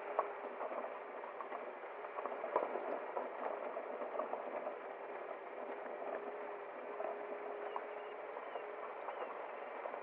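Tyres rolling over a gravel road: a steady crackle of small stones popping and crunching under the wheels, with a faint steady hum underneath.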